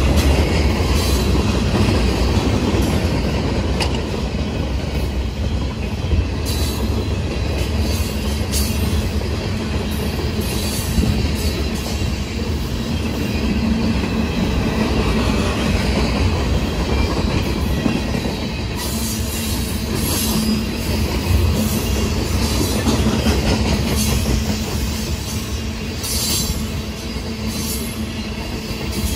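Train rolling along the track: a steady rumble and hum of wheels on rail, with scattered sharp clicks.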